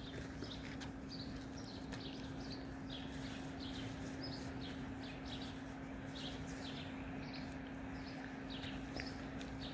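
Small birds chirping: short, high, downward-sliding notes repeated a few times a second, over a steady hiss and a low steady hum.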